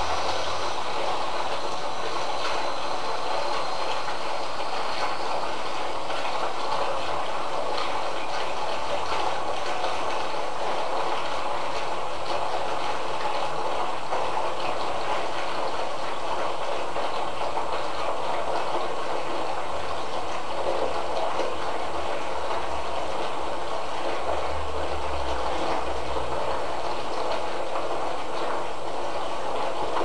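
Bath taps running, water pouring steadily into a filling bathtub.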